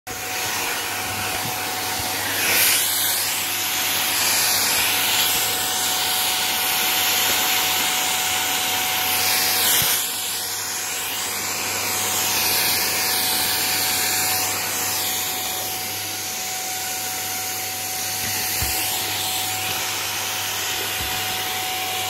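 Vacuum cleaner running steadily with a dusting-brush attachment on its wand: a loud rush of air with a thin steady whine and a low hum underneath, the rush swelling and dipping a little.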